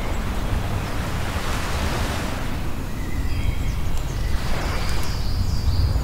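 Surf breaking and washing up a shingle beach over a steady low rumble; the wash swells twice.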